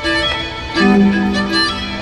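A string quartet playing: a short repeated violin figure, joined about a second in by a held lower note.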